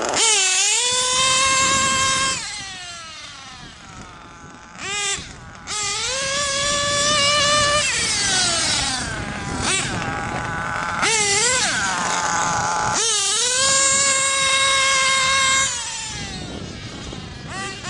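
Nitro engine of a Mugen MBX5T RC truggy (a JPX .28 on a tuned pipe), run at full throttle in repeated bursts. Each burst is a high-pitched whine that climbs quickly, holds steady for a couple of seconds at top revs, then drops away in pitch as the throttle is let off. There are about five runs with quieter idle gaps between, two of them only brief blips.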